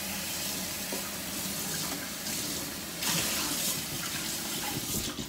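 Kitchen tap running, a steady stream of water into the sink, briefly louder about three seconds in.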